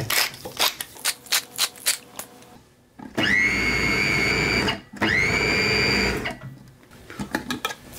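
Pepper mill grinding in quick clicks for about two seconds, then a food processor blending chickpeas and sesame paste into hummus in two runs of about a second and a half each, the motor whine rising as it spins up each time.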